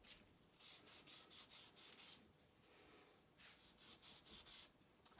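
Faint, quick rubbing strokes, several a second, in two spells, on the oiled ways of an old lathe bed.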